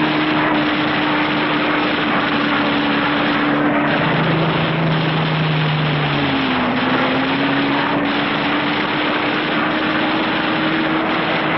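Aircraft engines running with a steady drone, their hum dipping in pitch about six and a half seconds in, over a hiss of old film sound.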